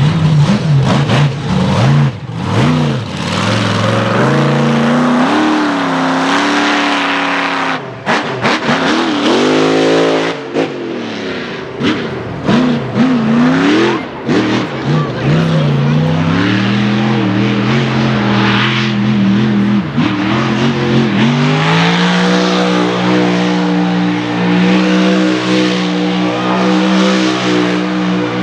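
Monster truck engine revving up and down over and over as the truck drives and slides on grass, with a short lift-off about a third of the way in. Near the end the engine holds a long, steady high rev.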